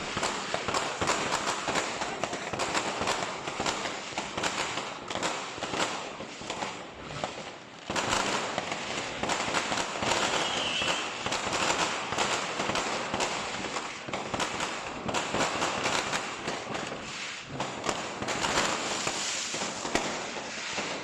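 Many fireworks going off at once: a dense, unbroken crackle of bangs and pops. It gets louder about eight seconds in.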